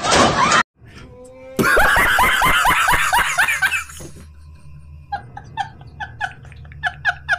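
A man laughing hysterically: a long loud burst of laughter, then, from about five seconds in, a run of short wheezing 'ha' pulses at about three a second.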